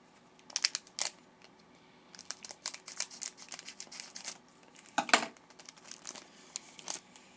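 A trading-card pack wrapper being torn open and crinkled: a run of sharp crackles, loudest about five seconds in.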